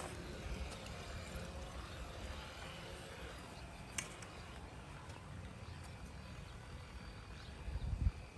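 Pool Blaster Fusion PV10 battery pool vacuum running submerged on the pool floor, heard as a low, muffled hum with water noise. There is a sharp click about four seconds in and a louder low rumble near the end.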